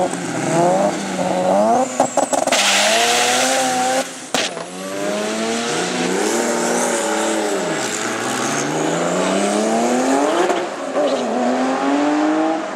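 Three-rotor 20B rotary engine in a 1993 Mazda RX-7 at full throttle on a drag-strip launch. Its pitch climbs through each gear and drops back at every shift.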